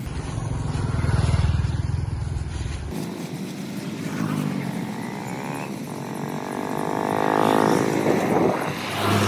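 Motor vehicle engine running: a low rumble that cuts off suddenly about three seconds in, then an engine note that rises and falls in pitch and is loudest near the end.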